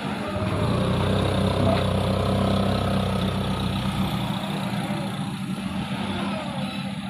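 Hino 500 truck's diesel engine running at low, steady revs as the heavy truck crawls through deep mud, a little louder in the first few seconds and easing off after about four seconds.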